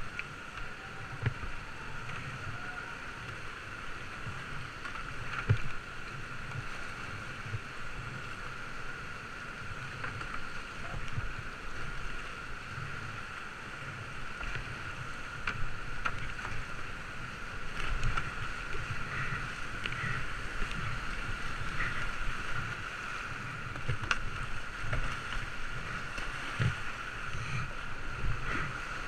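Rushing whitewater of a steep mountain creek with paddle strokes and splashing, heard close on a kayaker's GoPro as the kayak runs the rapids. The noise is steady, with irregular low buffeting and scattered small splashes.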